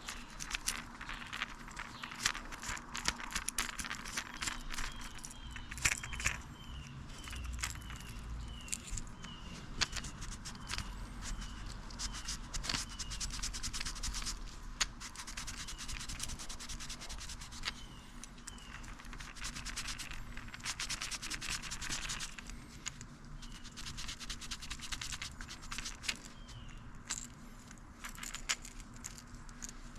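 Scratchy rubbing and scraping as a Swiss army knife works through a matted, slimy old carpet to cut a snagged lure free, with many irregular small clicks.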